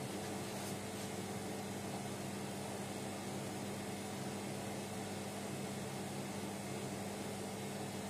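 Hotpoint Ariston front-loading washing machine running, its drum motor giving a steady hum at an even level.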